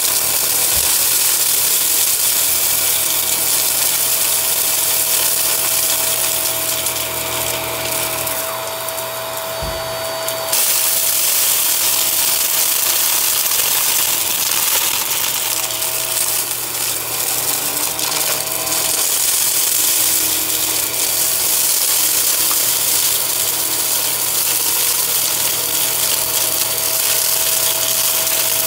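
Hart corded upright vacuum running on carpet, its motor giving a steady whine while its brush roll picks up small hard debris that crackles and rattles through the head. The sound dips briefly about nine seconds in, with a low thump.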